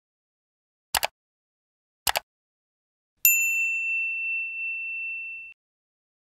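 Two quick double clicks about a second apart, then a single high bell ding that rings for about two seconds and cuts off suddenly.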